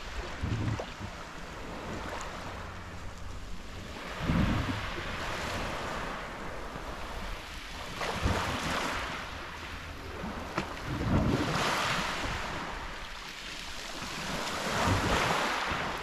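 Small Black Sea waves breaking and washing over a pebble beach, swelling and fading every few seconds. Gusts of wind thump on the microphone.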